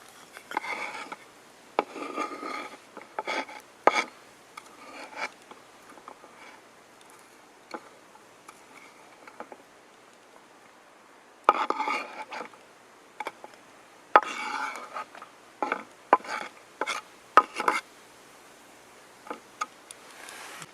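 Knife chopping vegetables on a wooden cutting board: short runs of crisp slicing and sharp taps on the board, with pauses between them, including a quieter stretch in the middle.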